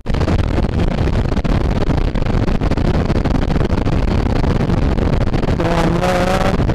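Motorcycle riding at highway speed: steady wind rush over the microphone over the low drone of engine and road.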